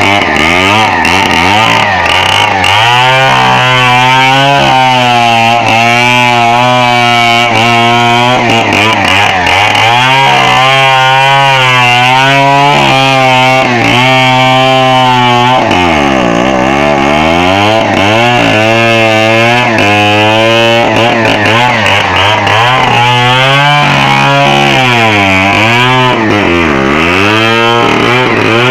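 Chainsaw running at high revs while cutting into a coconut palm trunk, its engine pitch repeatedly rising and falling and dropping sharply a few times as the chain loads up in the cut.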